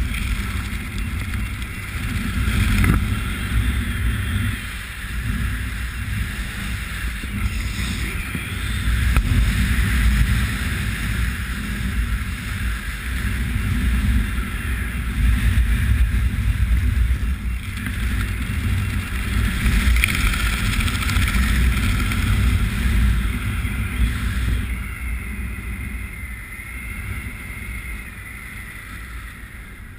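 Wind rushing over the microphone of a camera worn by a skydiver flying under an open parachute canopy. It runs as a steady rush with gusts and dies down over the last few seconds as the jumper comes in low over the grass to land.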